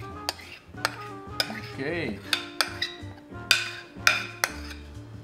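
A spoon clinking and scraping against a dish while batter is transferred, over light background music with held notes.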